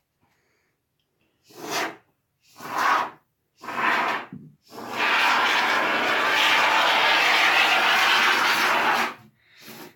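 Can of expanding foam spraying through its applicator tube with a hiss: three short bursts, then one long spray of about four seconds, then a short burst near the end.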